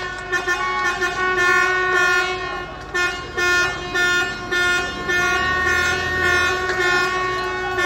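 Vehicle horns honking in long, nearly continuous blasts with brief breaks, a low rumble rising under them about five seconds in.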